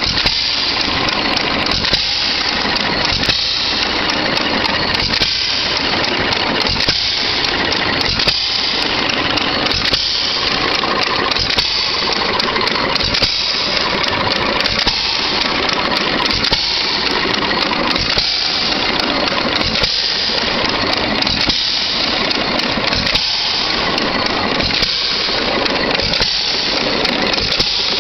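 Hercules 1-1/2 hp single-cylinder hit-and-miss gasoline engine running unloaded, firing and coasting on its flywheels in a steady, even rhythm about once a second.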